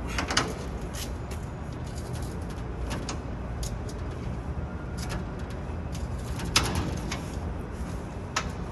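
Scattered metallic clicks and knocks of a key working the latch of a transit bus's lower side access panel, the loudest about six and a half seconds in, over a steady low hum.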